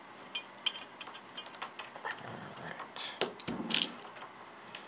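Scattered light clicks and clinks of small metal airsoft gearbox parts being handled and set down, with a cluster of louder clicks about three to four seconds in.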